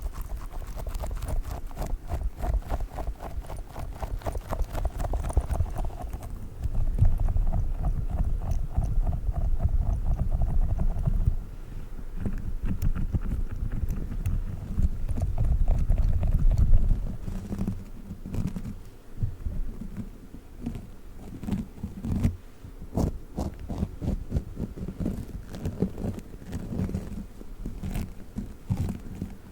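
Fingers rapidly tapping and working a squishy dog toy close to the microphone, a dense, fast stream of soft strokes heavy in the low end. After about seventeen seconds it thins out into separate, sharper taps.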